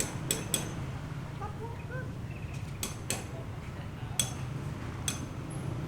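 Sharp metallic clinks, about six in irregular pairs and singles, each ringing briefly, over a steady low hum.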